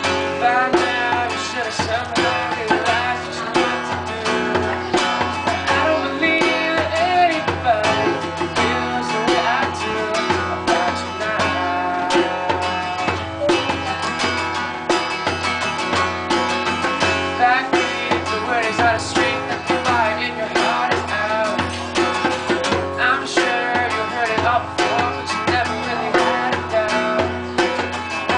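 Live acoustic music: an acoustic guitar strummed with a steady beat on a djembe hand drum, and a young man singing along.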